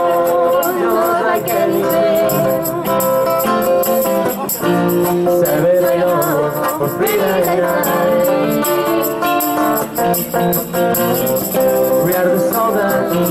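Live band music: electric and acoustic guitars playing together with a singing voice.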